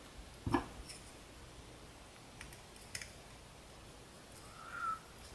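Small metal handling sounds as a tiny screw is driven into a 16mm aviation connector with a small screwdriver: a sharp knock about half a second in, then a few faint ticks. A short faint tone sounds near the end.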